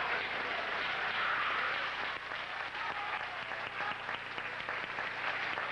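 Audience applauding steadily, a dense mass of overlapping claps.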